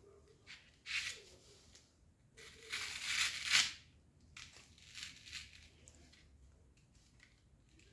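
Crinkling and rustling of materials being handled, in several bursts, the longest and loudest in the middle.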